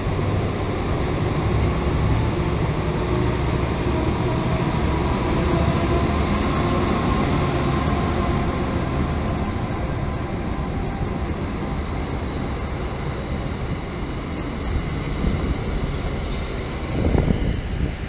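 Commuter train rolling past the platform: a steady rumble of wheels on rail, with a faint high whine that slowly rises in pitch through the middle.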